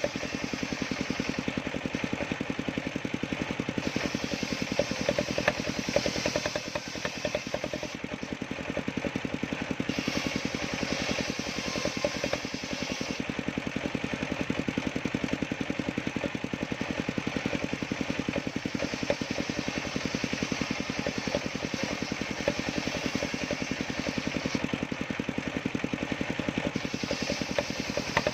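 Engine of a homemade sawmill running steadily, with a fast, even firing beat.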